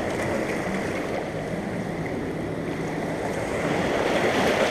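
Fast-flowing river current rushing and churning against the rocks of the shoreline, a steady rush of water that grows a little louder near the end.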